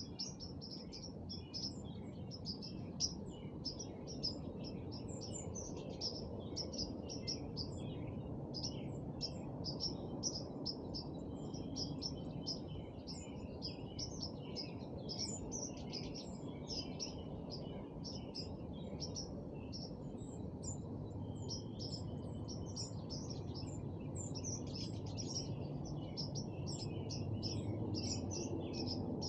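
Small birds chirping and twittering continuously, many short high notes in quick succession, over a steady low background rumble.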